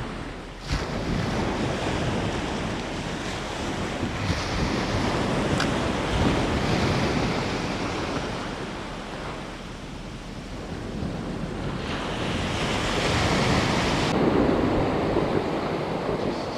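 Waves breaking on a surf beach, the wash swelling and easing, with wind buffeting the microphone.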